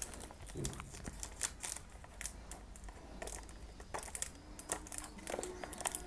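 Fingernails picking and scratching at the clear plastic shrink-wrap on a perfume box, giving scattered small crackles and clicks, then the thin plastic crinkling as it is peeled off near the end.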